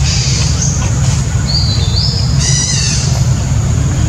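Birds calling with a few short, high whistled chirps and one brief richer call about two and a half seconds in, over a loud steady low rumble.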